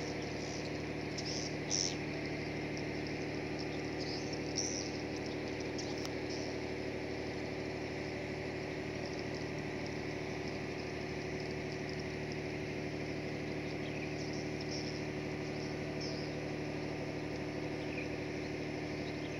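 A steady mechanical hum, like an engine idling, with several held low tones. A few brief high chirps come through about 1.5 s, 4.5 s and 14 s in.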